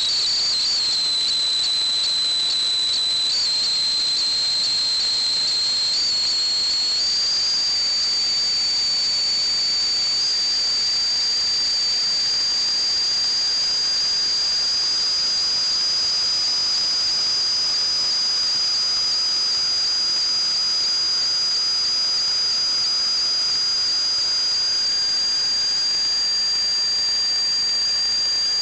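A plumbing fixture or pipe making a continuous high-pitched whistle with a hiss behind it. The pitch wavers and drops out for moments in the first several seconds, then holds steady.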